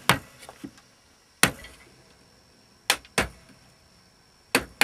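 Wooden mallet striking a half-inch firmer chisel, chopping small pieces of waste out of a lime blank held in a vise. About six sharp, separate blows, the later ones closer together.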